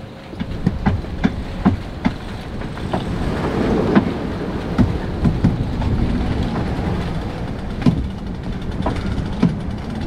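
Strong wind buffeting and rushing water along a sailing yacht running downwind in a gale, a dense low rumble with irregular sharp knocks and clicks throughout.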